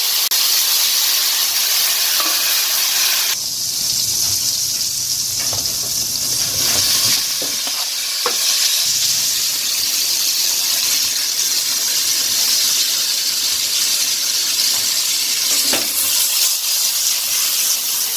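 Food sizzling steadily in hot oil in a frying pan, with a few light knocks of a utensil being stirred.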